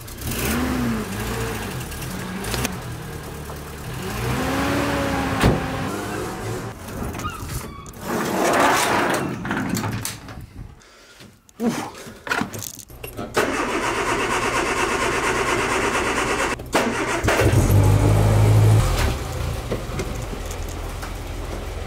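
Car engines being started and running, broken by several cuts. Near the end a classic Mini Moke's engine runs steadily.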